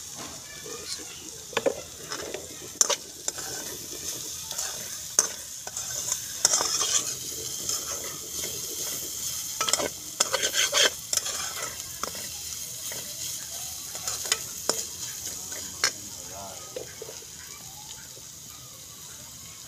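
Onion, green chilli and spice masala sizzling steadily in oil in a frying pan, with a metal spatula now and then clicking and scraping against the pan as it is stirred.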